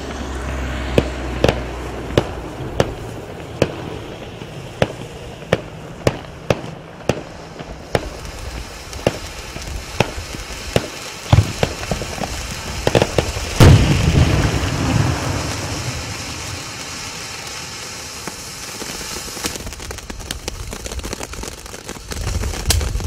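Gun-shaped firework fountain going off: a string of sharp pops about once or twice a second, then a few louder bangs, after which the spray of sparks settles into a steady hiss with crackling and scattered pops near the end.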